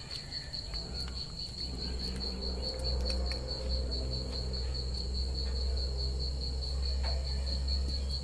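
A cricket chirping steadily in quick, even pulses, over a low steady rumble that grows louder about two seconds in.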